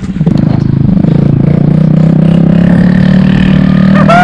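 Honda Dio scooter's single-cylinder four-stroke engine running with its silencer missing, a loud open exhaust; it revs up as the scooter pulls away about a second in, then holds a steady note while riding.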